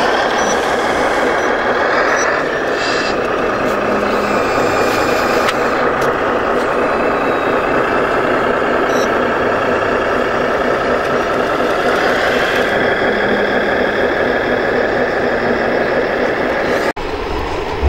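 Radio-controlled model tipper truck running with an engine-like drone and a whine that rises twice, about two seconds in and again about twelve seconds in. The sound changes abruptly just before the end.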